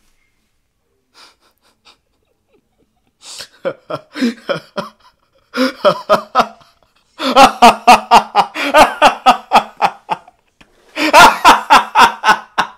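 A man laughing. After about three near-silent seconds, held-in, breathy snickers build into loud open laughter in rapid pulses.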